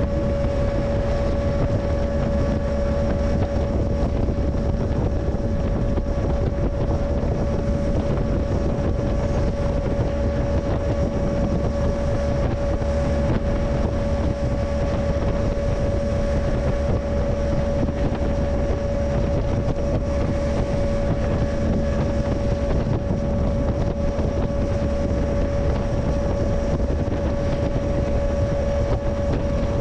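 Freight train running steadily at speed: a constant rumble with a steady, unchanging whine, and wind buffeting the microphone.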